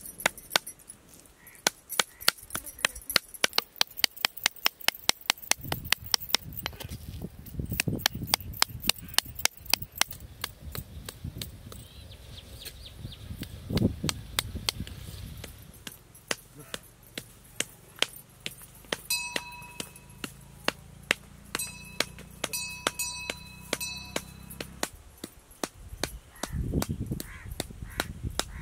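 Heavy kitchen knife chopping raw mutton into mince on a wooden log block, repeated sharp strikes in a quick, even rhythm. A few short, high, pitched calls sound over the chopping a little past the middle.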